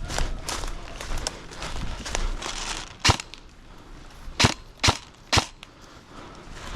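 An airsoft replica fires four single shots as sharp cracks. The first comes about three seconds in, and three more follow about half a second apart a second later. Irregular rustling and footsteps come before them.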